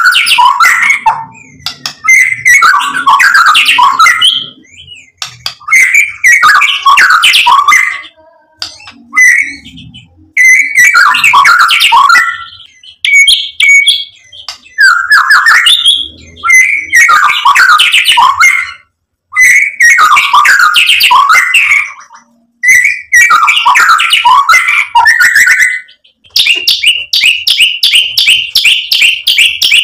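White-rumped shama singing loud, varied song in phrases of one to three seconds with short pauses between. Near the end a fast, evenly repeated trill runs for several seconds.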